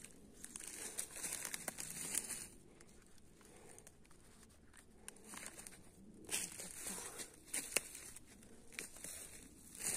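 Irregular rustling and crinkling of dry fallen leaves and a mesh bag as mushrooms are picked and bagged by hand, with a few sharp clicks.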